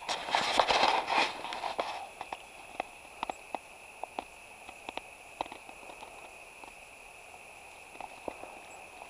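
Dry leaf litter and twigs rustling and crackling close by, loud for about the first two seconds, then a scattering of separate sharp snaps and clicks.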